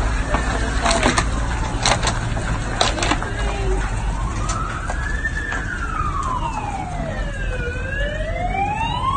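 An emergency vehicle's wailing siren, rising and falling slowly in pitch and growing louder through the second half. Under it runs a steady low rumble, and a few sharp knocks come in the first three seconds.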